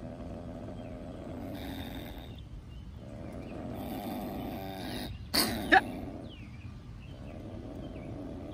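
Young Virginia opossum in a wire cage trap, growling steadily and hissing in two stretches with its mouth gaping: a defensive threat display. Two sharp, loud sounds come about five and a half seconds in.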